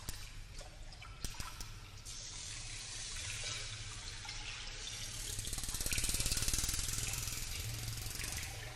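Water rushing and splashing in an even hiss that swells louder past the middle, with a few sharp clicks in the first second or so.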